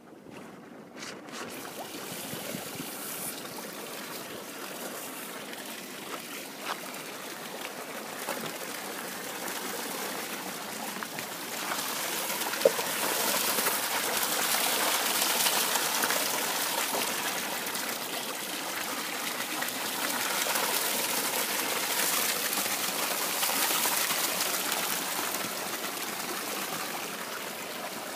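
Water running and trickling steadily in an aquaponics system, growing louder about halfway through, with one brief click near the middle.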